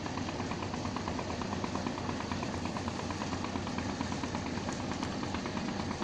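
A boat engine running steadily with a low hum and a fast, even beat.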